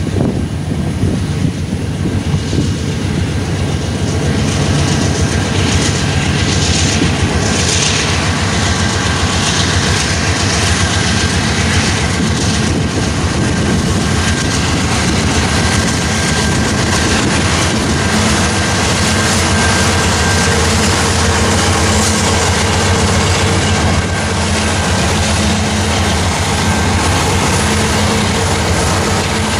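Union Pacific diesel-electric locomotives hauling a coal train pass close by. Their engines run steadily over the rumble of the wheels on the rails, building over the first few seconds and then holding.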